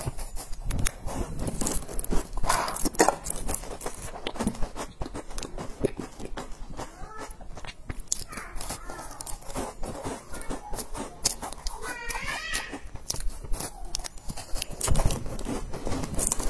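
Biting into and chewing crumbly, crisp round cookies: a dense run of dry crunching and crackling bites.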